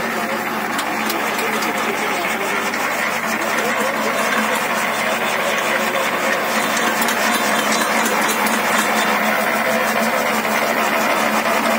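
Paddy rice dryer running steadily: an even machine hum of motor and fan with a fast, regular ticking over it.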